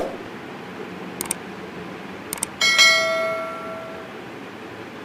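Subscribe-button animation sound effect: two pairs of quick mouse clicks, then a bell dings once and rings out over about a second and a half. A short thump at the very start.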